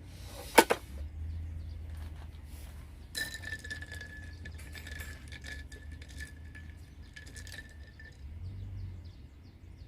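A sharp, loud glass clink about half a second in. About three seconds in come more clinks, followed by a steady high ringing tone that lasts about five seconds.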